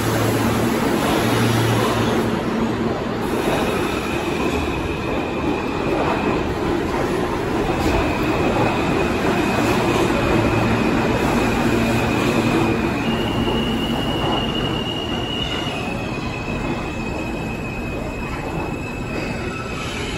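New York City Subway train running alongside an underground station platform: a continuous rumble of wheels on rail with a high-pitched wheel squeal that holds steady tones and shifts pitch several times. It grows slightly quieter toward the end.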